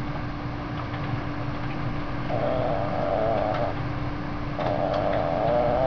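Yorkshire terrier vocalizing in reply, two drawn-out, wavering grumbling sounds, each about a second and a half long.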